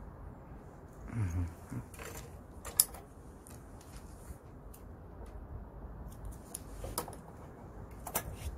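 Hands tying and tightening line on a collapsible mesh fish trap: a few sharp small clicks and snips, the last near the end from scissors cutting the line. A brief low voice sound about a second in.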